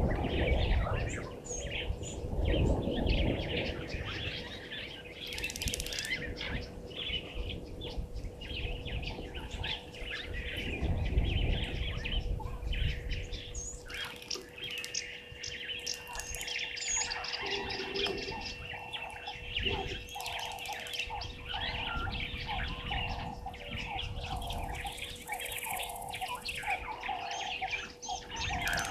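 Chorus of many birds chirping and calling over one another, with a faint steady hum underneath and low rumbling now and then.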